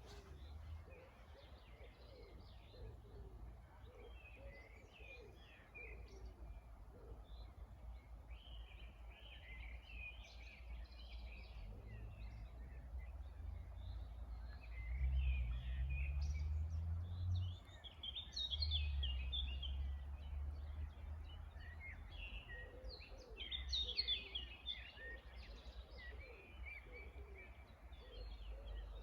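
Several songbirds chirping and singing in short overlapping phrases, over a low rumble that swells about halfway through and is briefly the loudest thing heard.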